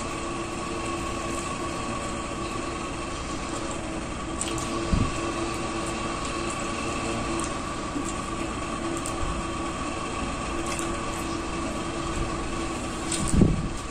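Steady machine hum with a few held tones, with faint chewing clicks of people eating fried breaded chicken. Two dull thumps come about five seconds in and near the end.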